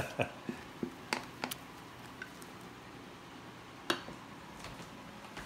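A rubber spatula scraping and knocking against stainless steel mixing bowls as soufflé base is tipped and scraped from one bowl into another: a scattering of light clicks and taps, one of the sharpest about four seconds in.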